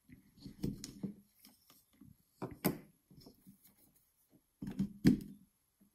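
Plastic clicks and knocks from handling a USB phone charger, pulling it out of a plug adapter and pushing another charger in. The sharpest knocks come about two and a half seconds in and again about five seconds in.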